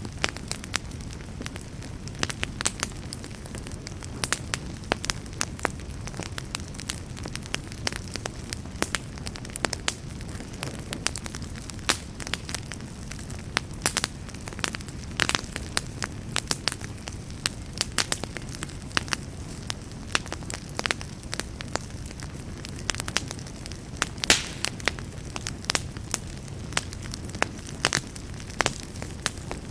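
Wood fire burning in a fireplace: a steady low rumble of flames with frequent irregular sharp crackles and pops, one louder pop near the end.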